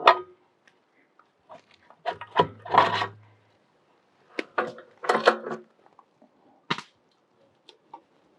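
Parts of a GRIT Freedom Chair all-terrain wheelchair being handled and fitted together during assembly: several bursts of clunks, clicks and rattles with short pauses between, and a sharp knock near the end.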